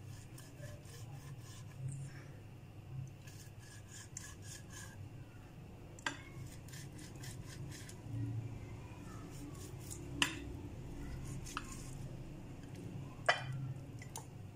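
A knife scoring raw chicken legs on a ceramic plate: a run of quick, faint scraping strokes, then a few sharp clicks about six, ten and thirteen seconds in.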